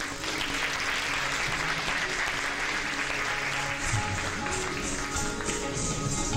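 An audience applauding for about four seconds. Then the dance accompaniment resumes with low drum strokes and instrumental tones.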